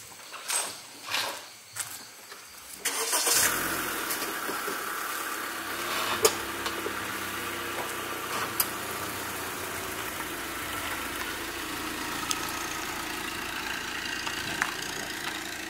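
A few knocks, then about three seconds in an engine starts and keeps running steadily, with a few sharp clicks over it.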